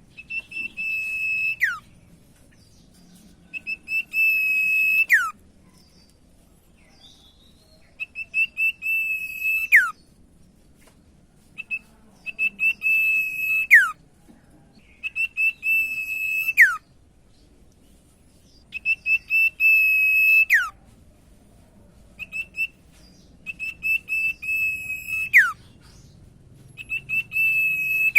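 Common iora (cipoh, or sirtu) singing loud whistled phrases, one every few seconds. Each phrase is a quick stutter of short notes, then a held clear whistle that drops sharply in pitch at the end.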